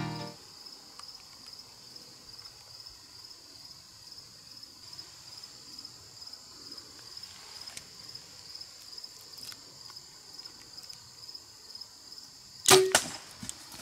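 Faint steady chorus of insects pulsing high and fast, about four pulses a second; near the end a single sharp loud crack of a bow being shot, with a smaller knock just after.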